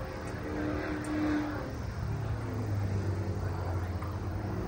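An engine running steadily off-screen: a low hum with a higher tone above it that wavers slightly in pitch.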